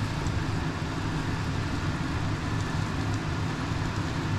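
Ninja Foodi multi-cooker's fan running steadily, a low hum with a hiss over it and a few faint ticks.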